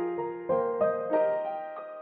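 Soft background piano music: a slow melody of notes and chords, each struck sharply and then fading.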